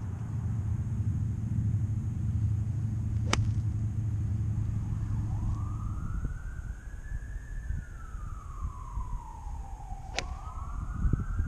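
Emergency vehicle siren wailing: starting about halfway through, it rises, falls slowly, then rises again near the end. A low rumble fills the first half, and a sharp click near the end is a golf club striking the ball off the tee.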